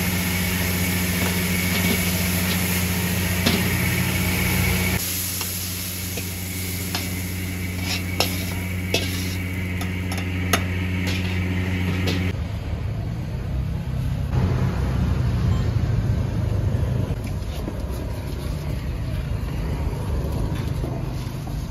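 A steady motor hum with a few sharp clicks and clinks over it. The hum changes abruptly twice, becoming a rougher low rumble about twelve seconds in.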